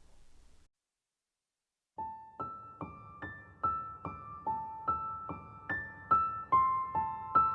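Background music on a keyboard, piano-like single notes struck about two or three a second, each ringing out. It starts about two seconds in, after faint room tone and a moment of dead silence.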